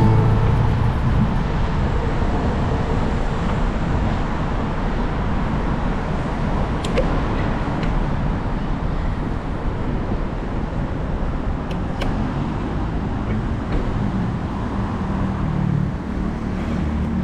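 Road traffic with cars passing, heard over a steady low rumble of wind on the microphone from a moving bicycle. A couple of faint clicks come through about halfway in.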